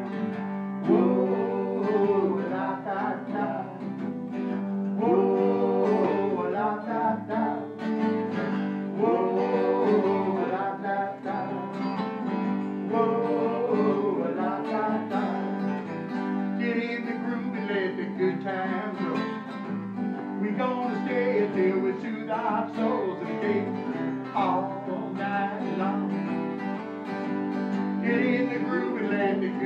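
Two acoustic guitars strummed together in a steady country-style groove, with a man singing along.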